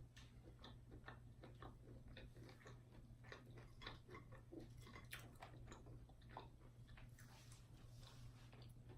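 Faint close-up chewing and crunching of fried food, many small soft crackles and mouth clicks, over a low steady hum.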